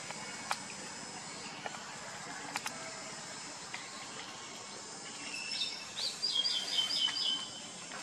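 Steady outdoor background noise, over which a bird calls a quick run of about six sharp chirps, each falling in pitch, starting about five seconds in.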